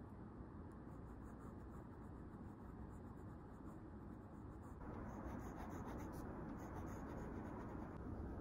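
A stylus nib scratching and tapping on a tablet's glass screen as lines are drawn: a faint, steady scratching with light ticks, a little louder from about five seconds in.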